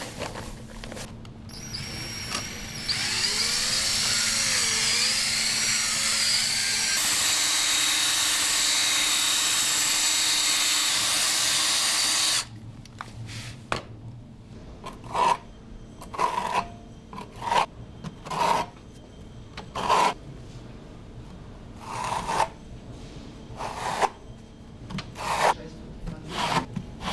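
An electric drill with a mixing paddle runs in a bucket of grey cement-based sealing adhesive for about ten seconds, its pitch shifting as the speed changes, then stops. After it, a series of short scrapes, about one a second, comes from a trowel working the mixed mortar.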